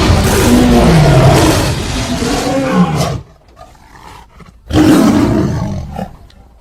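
Two tiger roar sound effects: a long, loud roar that ends about halfway through, a brief quieter gap, then a second roar that fades away near the end.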